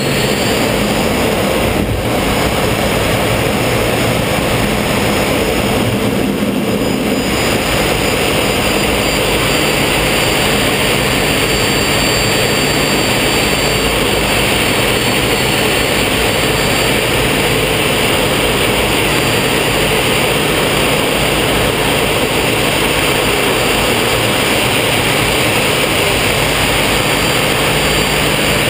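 Folland Gnat's single Bristol Siddeley Orpheus turbojet running steadily and loud during takeoff, heard from inside the cockpit: a dense rushing noise with a high whine that rises in pitch at the start and then holds steady.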